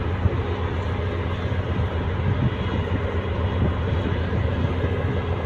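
Steady low mechanical rumble with a droning hum, engine-like, holding an even level throughout.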